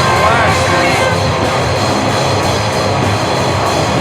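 Distorted punk/grunge rock band playing loud and steady, with electric guitars, bass and a driving drum kit, and one short shouted vocal line about half a second in.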